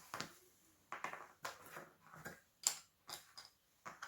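Plastic casing of a broken Toyota RAV4 key fob being forced open: a string of sharp clicks and cracks, the loudest about two and a half seconds in.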